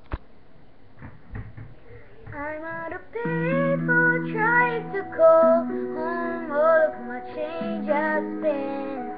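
A click and a few soft knocks, then, about two seconds in, a female voice begins singing a pop melody over sustained chordal instrumental accompaniment.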